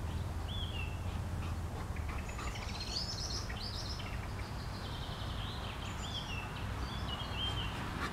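Small songbirds singing: short down-slurred chirps about half a second in and again near the end, with a quicker high warble a little before the middle. A steady low rumble sits underneath.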